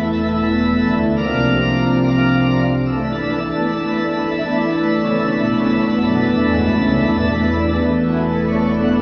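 Pipe organ played with sustained chords on the manuals over deep pedal bass notes, the chords changing every second or two. The bass drops out for a few seconds partway through, then comes back.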